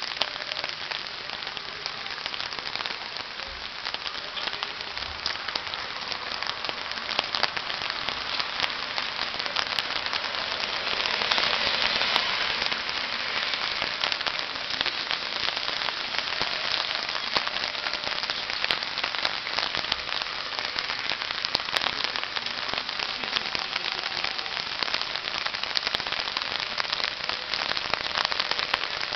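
Steady dense crackling and hiss of rain pattering on surfaces, a little louder about twelve seconds in.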